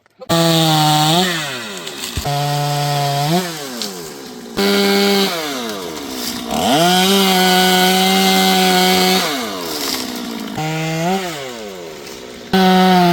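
Chainsaw engine throttled up to full speed in about six bursts, each held briefly and then falling back toward idle, with the longest held run near the middle.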